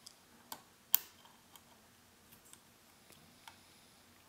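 Lock pick and tension wrenches working the security pins of a pin-tumbler lock: a scattered series of light metallic clicks, the sharpest about a second in.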